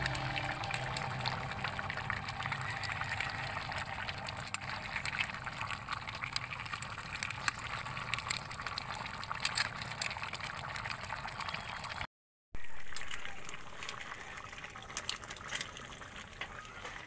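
A pot of taro and snails in coconut milk boiling hard, with steady bubbling and popping. The sound drops out briefly about twelve seconds in, then comes back louder and eases off.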